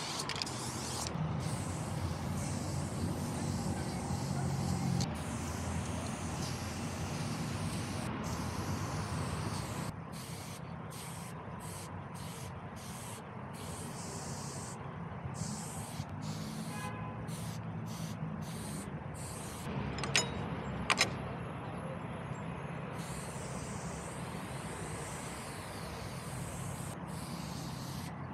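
Aerosol spray paint can hissing in repeated bursts with short breaks between strokes, over the steady low rumble of a vehicle engine. Two sharp clicks come about two-thirds of the way in.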